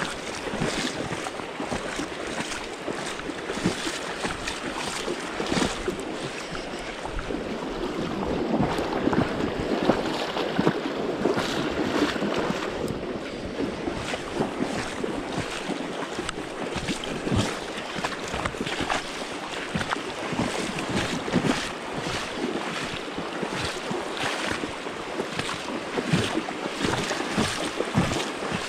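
Fast shallow river current rushing and splashing around the legs of a person wading through it, with many short splashes throughout and some wind on the microphone.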